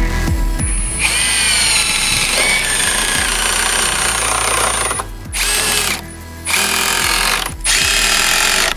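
Milwaukee M18 FUEL Surge hydraulic impact driver boring a self-drilling tek screw through sheet metal, its motor whine sliding in pitch. It runs for about four seconds, then stops and starts again in several shorter runs.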